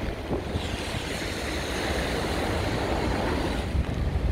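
Rushing floodwater of an overflowing river, a steady hiss of water, with wind rumbling on the microphone. The hiss grows fuller about half a second in and eases off near the end.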